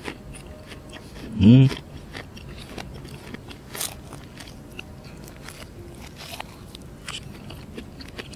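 Close-miked eating sounds: a person chewing food with many small wet mouth clicks and smacks. About one and a half seconds in there is a short voiced hum that rises in pitch.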